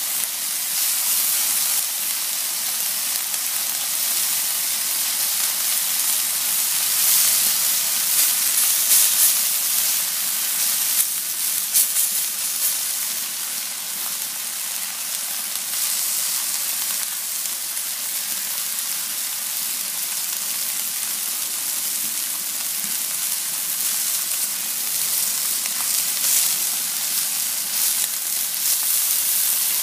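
Marinated chicken pieces sizzling on a hot ridged grill pan: a steady high hiss with crackles, a few louder pops between about seven and twelve seconds in.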